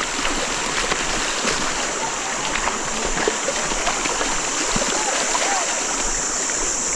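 A river flowing steadily, its water noise even and unbroken, with faint distant voices.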